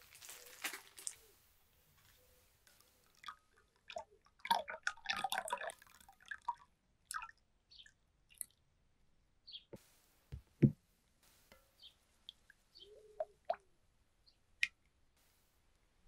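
Soap-making handling sounds: crinkling plastic wrapped around a glass jar of lye solution, and the solution trickling and dripping as it is poured into oils in a glass measuring jug, with scattered small clicks. A single sharp knock about two-thirds of the way through is the loudest sound.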